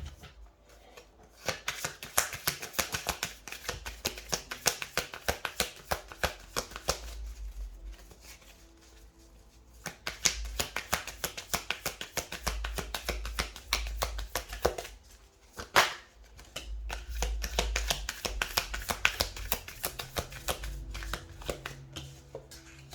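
Tarot deck being shuffled by hand: rapid flurries of card clicks in three long bouts with short pauses between them.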